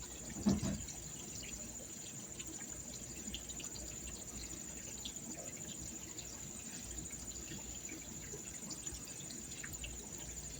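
Insects, crickets by their sound, trilling steadily and high-pitched throughout, with a single thump about half a second in.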